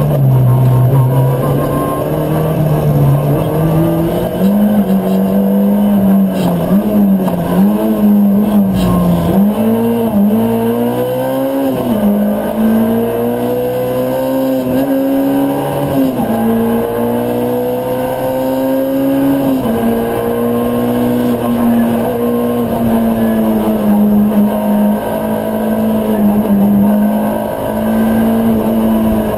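Ford Fiesta R2 rally car's 1.6-litre four-cylinder engine, heard from inside the cockpit while driven hard on a stage. The revs climb and drop again and again with gear changes, with a deep dip and a fast climb about ten seconds in.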